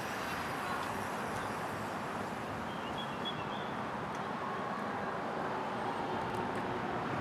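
Steady outdoor city traffic noise, an even rumble and hiss, with a few brief high chirps about three seconds in.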